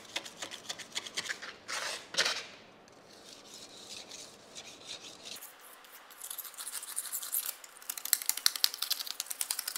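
Razor blade scraping dried white crust off a black granite countertop: a fast run of short scratchy strokes, with two broader swishes about two seconds in and a quieter pause midway before the quick scraping resumes.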